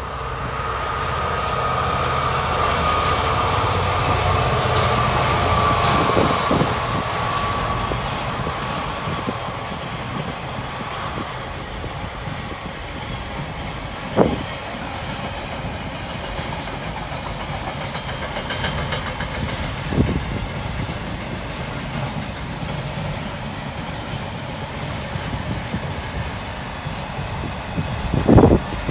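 Diesel freight locomotive passing at speed, its engine growing louder over the first several seconds, followed by a long train of container wagons rolling by with clattering wheels. A few sharp thumps from the wheels stand out, the loudest near the end.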